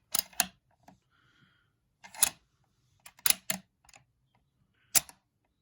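Handling of a Lee-Enfield SMLE rifle: a scattering of sharp clicks and knocks, about half a dozen, with short silences between.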